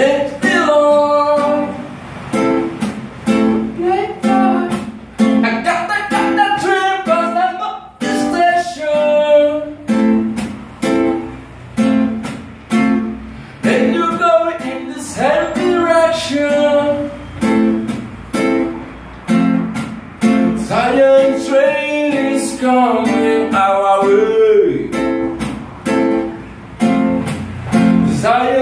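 A man singing while strumming a nylon-string classical guitar in a steady rhythm, his sung phrases coming in lines with short breaks between them over the chords.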